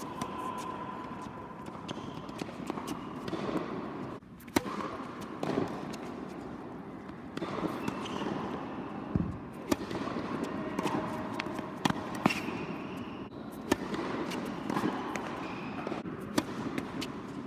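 Tennis rally on a hard court: racket strings striking the ball and the ball bouncing, a sharp pop every second or two, each with a short echo. A constant background noise runs beneath the hits.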